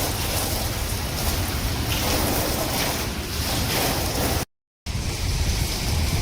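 Storm wind buffeting the microphone over crashing surf: a loud, steady rushing noise with a heavy low rumble. It cuts out briefly about four and a half seconds in, then picks up again.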